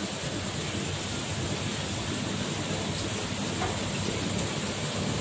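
Steady rushing of water circulating through aquarium tanks and their filtration, with no breaks.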